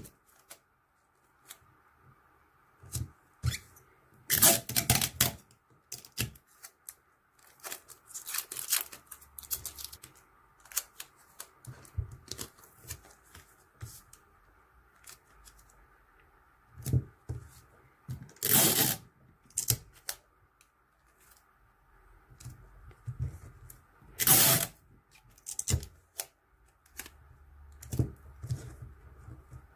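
Clear adhesive tape pulled off a desk tape dispenser in several short rips, with taps and rubbing between them as the strips are pressed down over a paper label.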